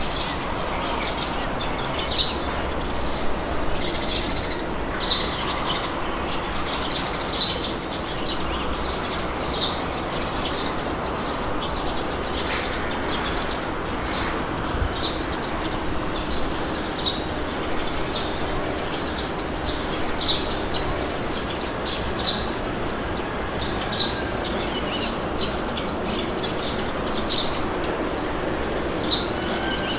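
Steady wind noise with birds chirping over it, short high chirps coming every second or so.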